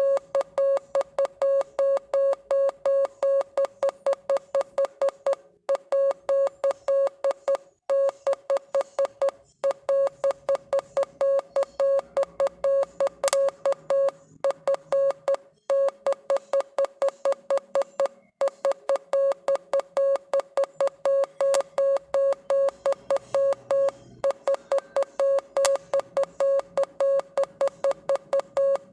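Morse code sent as a single mid-pitched beep tone, keyed rapidly on and off in dots and dashes, with short silent gaps between words every few seconds.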